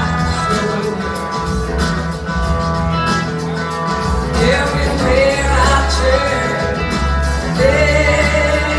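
Live blues-rock band playing: electric guitars, bass and drums, with a woman's lead vocal that is most prominent in the second half.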